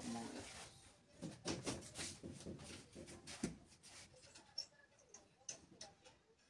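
Light taps, knocks and rustles of potted plants and objects being handled and set down on a wooden cabinet. There are several taps in quick succession, and they thin out over the last few seconds.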